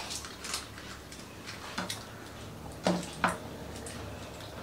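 A few scattered light clicks and clinks of dishes and puris being handled while eating pani puri, with two louder clinks about three seconds in.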